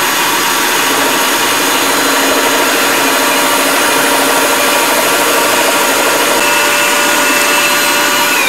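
Shop vacuum running steadily with a high whine, pulling dust through a Scrollnado dust-collection attachment, while a scroll saw cuts 1/4-inch Baltic birch plywood.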